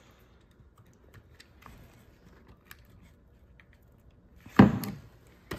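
Hands working an RC truck's battery plug into its speed-controller lead: faint plastic clicks and fiddling with the wires, then one sharp knock about four and a half seconds in.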